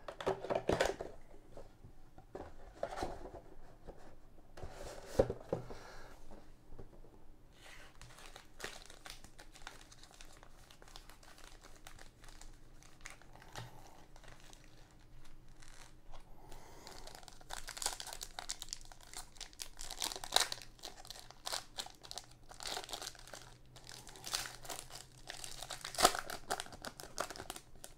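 Foil trading-card packs, 2020 Donruss football, crinkling as they are handled, with scattered crackles and taps as the cardboard box is opened. Over the last ten seconds or so the crinkling grows denser as a pack is torn open.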